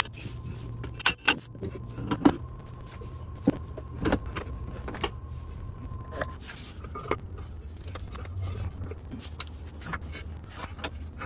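Irregular metallic clinks and sharp taps of hand tools and a mallet working on a van's underbody drivetrain parts. A steady high tone and a low hum run underneath, and the tone stops about six seconds in.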